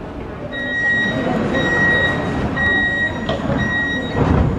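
Munich U-Bahn train at the platform sounding its door-closing warning: a high beep repeated four times, about once a second, over the station's rumble. A thump follows just after four seconds, fitting the doors shutting.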